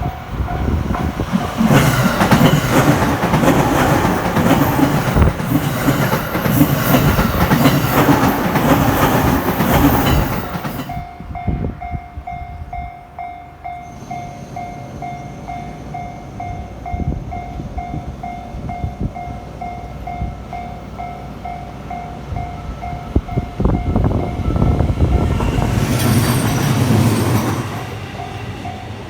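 A JR electric commuter train passes over a level crossing at speed, wheels clattering over the rail joints, while the crossing's electronic alarm bell rings in a steady repeating ding. The train clears about ten seconds in and the bell keeps ringing on its own, and near the end a second, shorter rush of train noise passes.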